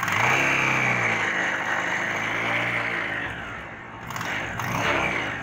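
Bajaj Pulsar 180's single-cylinder four-stroke engine revved up sharply from idle, held for about three seconds and eased off, then revved again about four seconds in. It is being revved with the lights off to check its battery charging voltage.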